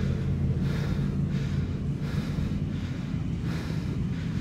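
Off-road 4x4 engine running at steady low revs under load. Heavy, rhythmic breathing close to the microphone comes and goes over it, about one breath every second and a half.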